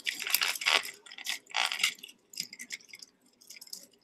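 Metal costume jewelry clinking and jangling as hands rummage through a heaped tub of bangles and chains: runs of light, bright clatter, busiest in the first second and thinning out toward the end.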